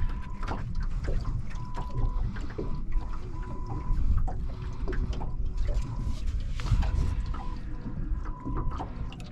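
Scattered clicks and light knocks from handling a barramundi and its lure on a carpeted boat deck, over a steady low rumble, with a faint high tone that comes and goes.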